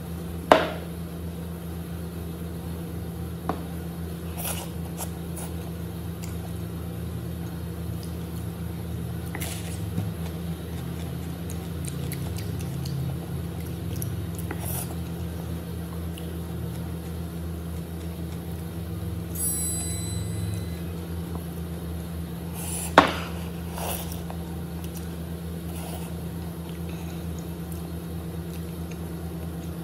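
A steady low hum runs throughout, under quiet wet handling and eating noises as food is torn and eaten by hand. A few light clicks and two sharp knocks stand out, one right at the start and a louder one about 23 seconds in.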